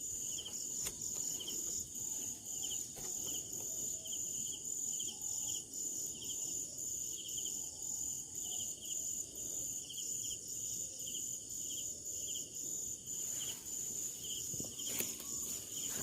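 Chorus of insects: a steady high shrill with a short chirp repeating about one and a half times a second, over a low rustling background. A few light clicks come near the end.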